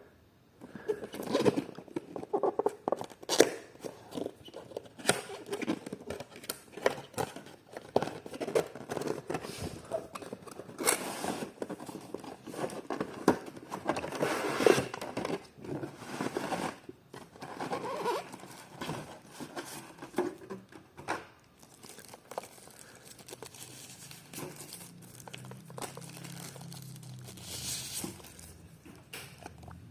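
Box and packaging being handled and opened: irregular crinkling and rustling of plastic and paper, with short taps and clicks. The handling thins out in the last third, where a faint low hum comes in.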